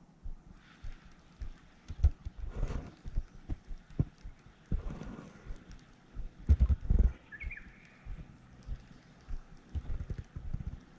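Baitcasting reel cranked in short spurts while the rod is worked, with irregular low knocks and thumps from handling the rod and reel. The loudest clusters of knocks come around two, five and seven seconds in.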